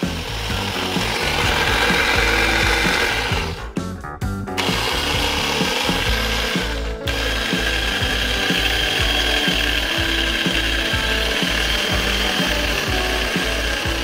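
Electric hand blender motor running at high speed with a steady whine, cutting out briefly about four seconds in and again near seven seconds before running on steadily.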